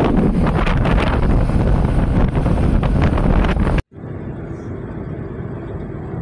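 Heavy wind buffeting the microphone on a moving motorcycle, with a loud low rumble. About two-thirds of the way in it cuts off sharply and gives way to a quieter, steady drone of a car moving along the road, heard from inside the cabin.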